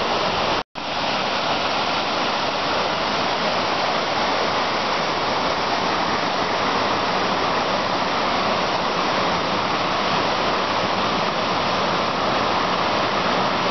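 Small waterfalls on a mountain creek, water rushing steadily and loudly. The sound cuts out for an instant near the start.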